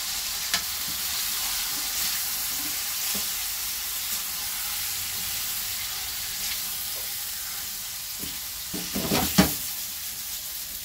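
Chicken pieces sizzling in hot oil in a pan as they are stirred with a silicone spatula. There is a steady frying hiss, with a few louder knocks near the end.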